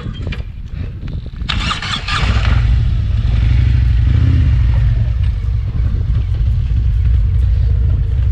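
Harley-Davidson Road King Special's V-twin engine starting about two seconds in, then running steadily as the bike moves off.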